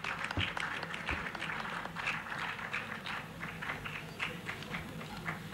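Audience applauding: many scattered hand claps running together.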